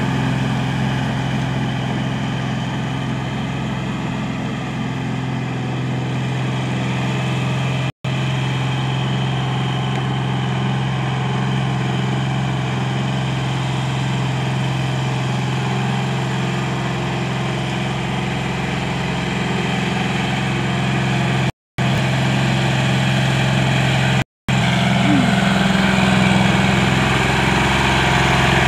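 John Deere tractor's diesel engine running steadily under load as it drives through a flooded rice paddy on iron cage wheels. The sound cuts out briefly three times: about 8 seconds in, and twice in quick succession past the 20-second mark.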